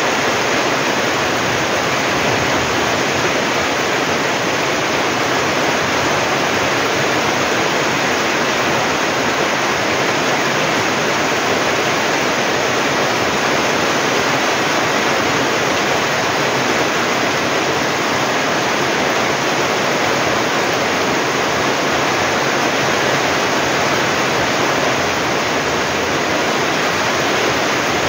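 Heavy typhoon rain pouring down steadily: a loud, even hiss with no let-up.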